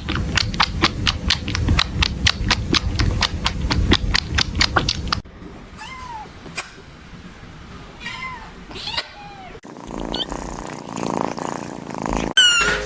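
A kitten meowing: several short, high meows that fall in pitch, then a louder meow near the end. The first few seconds hold a rapid, regular clicking, about four clicks a second, over a low rumble.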